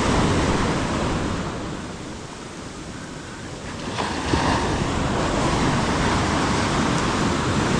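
Ocean surf breaking and washing up the beach, with wind on the microphone; the wash eases about two seconds in and builds again about four seconds in.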